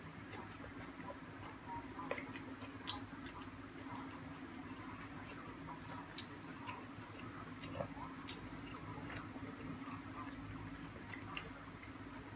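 A person eating: irregular sharp clicks and smacks of chewing, over a steady low hum.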